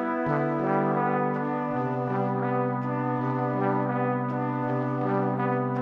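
Background music: held chords that change every second or two over a steady low note, with a light regular tick.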